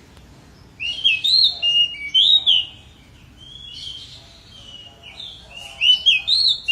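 Pied bushchat singing in full voice: two bursts of quick, clear, rising and falling whistled phrases, the first starting about a second in and the second near the end.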